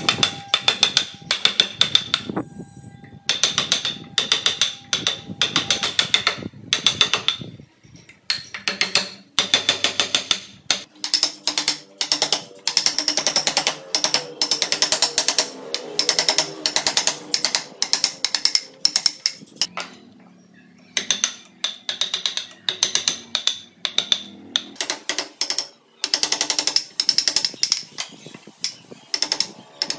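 Rapid runs of sharp taps as a wooden mallet drives a carving chisel into wood, many strikes a second with short pauses between the runs.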